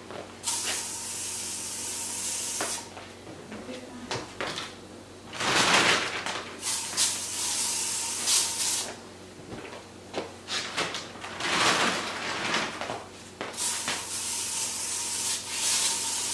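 Aerosol can of Lysol spray hissing in three long sprays of about two seconds each, with pillows and fabric rustling between them.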